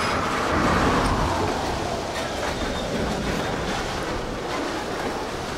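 Freight train rolling along the track, a steady rumble and rattle of the cars, with a high whine that slides down in pitch and fades about a second in.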